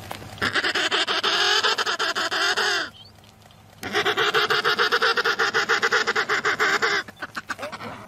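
Emperor penguin calling: two long calls with a fast buzzing pulse, about a second apart, trailing off into a few short pulses near the end.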